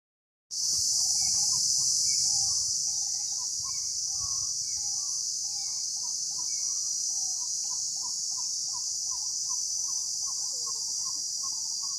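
Steady, high-pitched chorus of insects starting about half a second in, with a bird calling in short chirping notes about twice a second over it.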